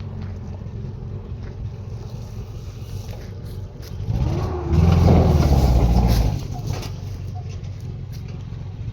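A vehicle engine running steadily, with a much louder surge of revving about four seconds in that lasts around two seconds and then falls back.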